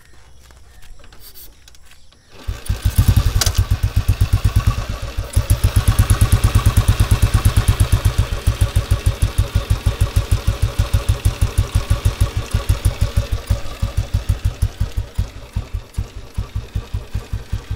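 Royal Enfield Bullet 350 single-cylinder engine starting about two and a half seconds in and then running on its stock silencer with a steady, even thump, faster through the middle and settling to a slower idle near the end.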